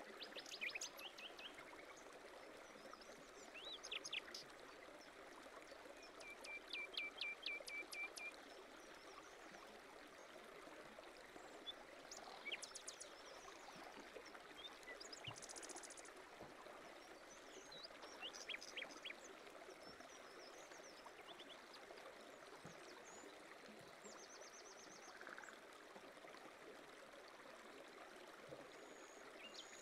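Faint nature ambience: water flowing steadily in a stream, with small birds chirping in short runs every few seconds and one rapid trill of about ten notes some six to eight seconds in.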